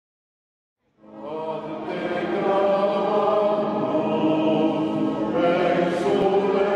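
Near silence for about a second, then choral singing fades in: several voices holding long, sustained notes together.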